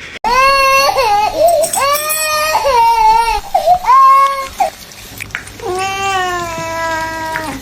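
A high, wailing cry in about four long drawn-out calls, the last one sliding lower in pitch.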